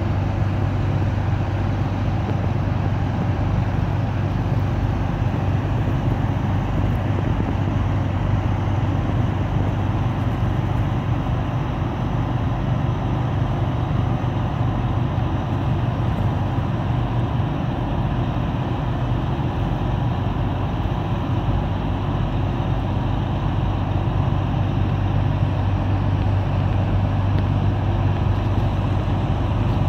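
A boat engine running steadily: a constant low hum with an even rushing noise over it.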